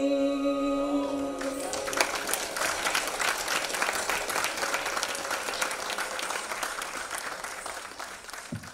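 The final held note of the music dies away about two seconds in, and an audience breaks into applause, which slowly fades toward the end.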